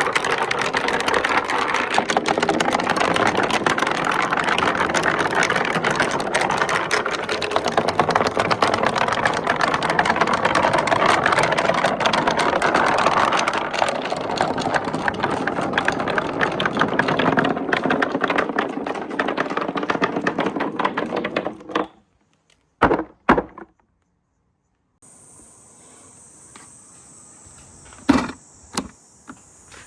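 Many marbles rolling and clattering down a marble run's slopes, a dense continuous rattle of clicks that dies away about 22 seconds in, leaving a few lone clicks as the last marbles settle. A steady high-pitched hiss starts a few seconds before the end.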